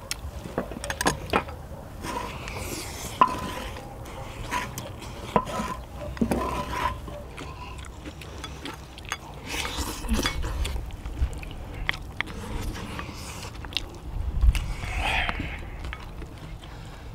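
Spoons and chopsticks clinking and scraping against bowls and a large round griddle pan as people eat fried rice from it: scattered short clicks and knocks, with a few brief ringing clinks.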